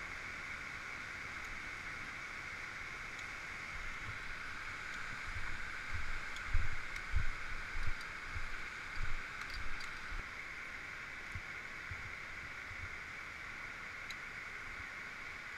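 Steady rushing of a waterfall and mountain stream, with a run of low thumps and bumps from about five to ten seconds in.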